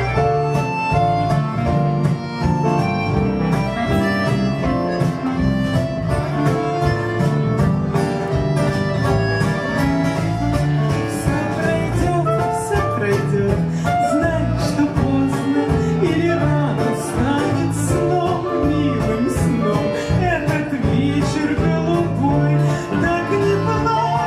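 Live band playing an instrumental passage: bayan (button accordion), clarinet, acoustic guitar, bass, drums and piano, with a steady bass line under held melodic notes.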